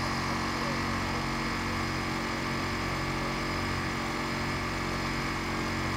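Steady engine drone with a constant hum that does not change.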